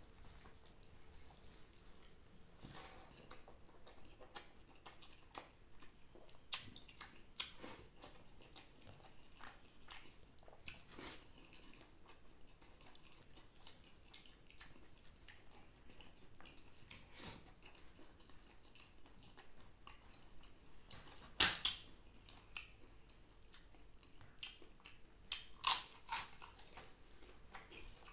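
Close-up eating sounds of a person eating rice with his hand: scattered wet mouth clicks and chewing, with a louder smack a little after 21 seconds in and three more near the end.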